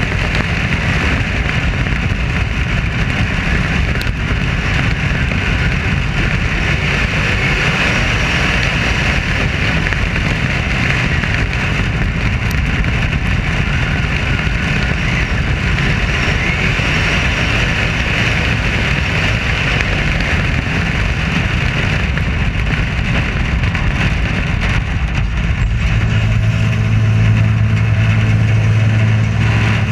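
Modified race car's engine running hard at race speed, heard from a roof-mounted camera as a dense rush of engine and air noise. About 26 seconds in, the engine settles into a steady low drone at even revs.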